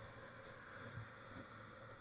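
Near silence: a faint, steady hiss with a slight low hum and no distinct events.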